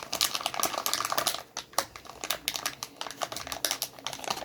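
Hands handling glossy slime and its plastic packaging, making dense, irregular small clicks and crackles.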